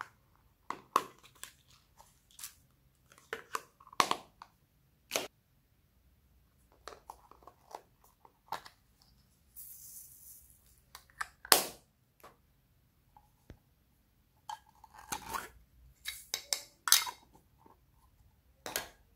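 Small plastic slime containers being handled and opened: an irregular series of sharp clicks, snaps and crackles of plastic lids, with a brief soft hiss about ten seconds in.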